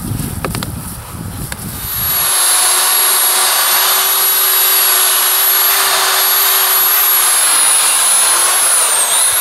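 Wind noise and a hose nozzle spraying water for about two seconds, then an electric drill driving a mixing paddle through damp Thermix chimney insulation: a loud, steady whine that dips in pitch and recovers near the end.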